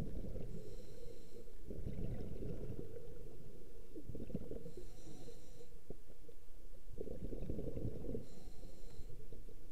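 Scuba diver breathing through a regulator underwater: three short hissing inhalations a few seconds apart, with the low rumble and crackle of exhaled bubbles between them.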